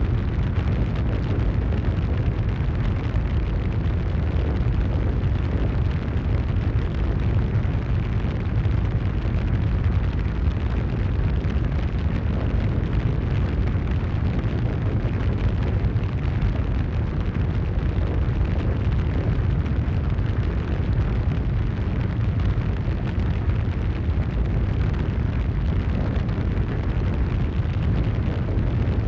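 Steady, deep rumbling noise that holds the same level throughout, with no separate bangs or impacts in it.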